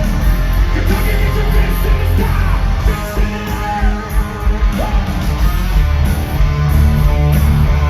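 Hard rock band playing live at full volume: distorted electric guitars over heavy bass and drums, without lyrics sung.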